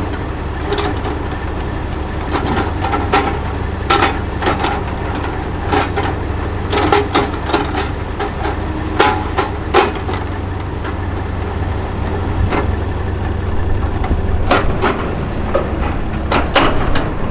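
A log loader's engine running steadily under irregular knocks and clunks of logs being set and shifted onto a log truck's trailer.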